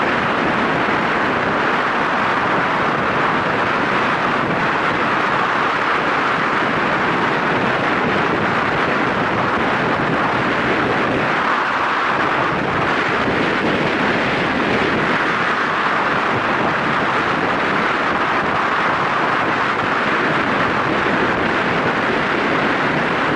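Steady wind rush buffeting the microphone on a moving motorcycle, with no clear engine note standing out.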